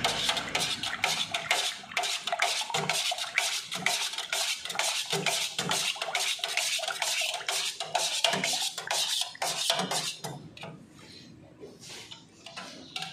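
A stirrer clinking and scraping in a container as pigment is mixed into sanding sealer, in quick steady strokes that stop about ten seconds in.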